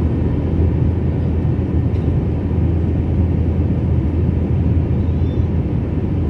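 Steady low rumble and hiss of an airliner's engines and airflow heard inside the passenger cabin in flight.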